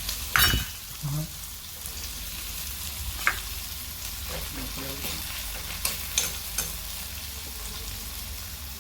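Garlic, ginger and green chillies with cumin sizzling steadily in hot oil in a pan, stirred with a spoon that clicks against the pan a few times, loudest about half a second in.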